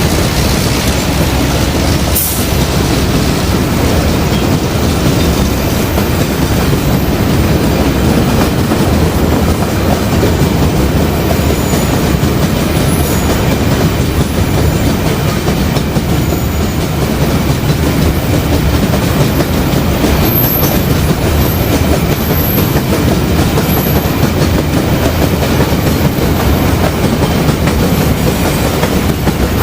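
Diesel-electric locomotive hauling a train past, its engine running under the steady rumble and clatter of wheels over the rails, with a sharp click about two seconds in.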